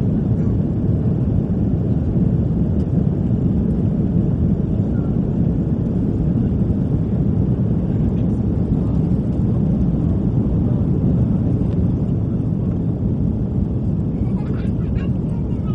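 Steady cabin roar inside an Airbus A340 climbing after takeoff: the four-engined jet's engine noise and the rush of air past the fuselage, heaviest in the low range.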